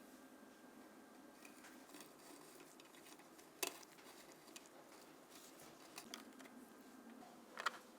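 Quiet clicking and tapping of small hard parts being handled, with two sharper clicks about four seconds apart, over faint room hiss.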